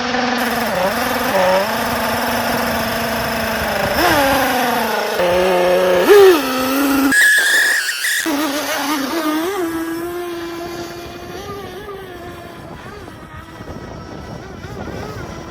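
Small glow-fuel engine of a radio-controlled model boat running on the water, a high buzzing note that rises and falls as the throttle is worked. It fades steadily over the second half as the boat draws away.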